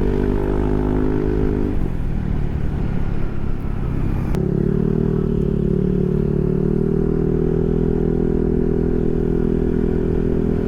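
Yamaha NMAX scooter's single-cylinder engine through a Proliner SR Neo Silent aftermarket exhaust, running at steady cruising revs while riding. It eases off about two seconds in, then opens up again about four seconds in and holds steady.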